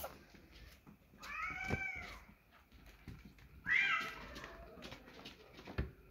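Young kittens meowing: two high-pitched calls, one about a second in and a louder one near four seconds, with light scuffling and a soft knock near the end.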